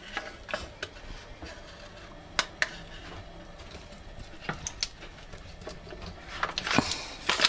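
A few light clicks and taps of handling, then a knife cutting down through a block of frozen butter on its paper wrapper near the end, with scraping and paper rustling. The butter cuts rather than snapping cleanly.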